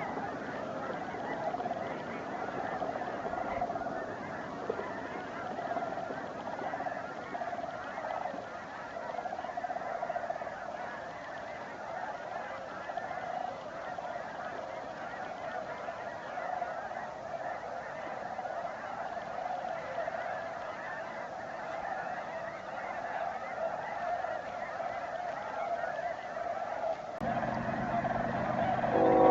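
A huge flock of snow geese and sandhill cranes calling all at once, a dense unbroken chorus of honks and calls. A steady hum comes in near the end.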